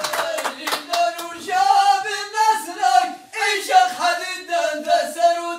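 Men singing Amazigh inshaden sung poetry in a chant-like style, with long held, wavering notes. A quick run of sharp beats in the first second.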